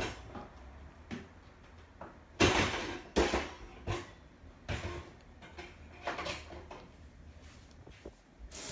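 Handling sounds of a single-serve coffee maker being moved into place: a series of irregular knocks, bumps and scuffs, the loudest a few seconds in.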